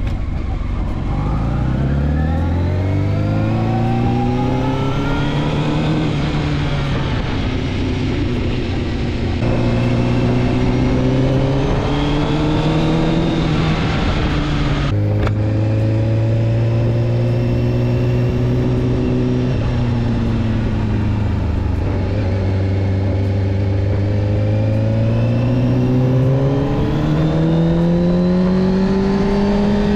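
Sport motorcycle's engine under way, rising in pitch as it accelerates, with gear changes about ten and fifteen seconds in, easing off for a few seconds and then pulling up again near the end.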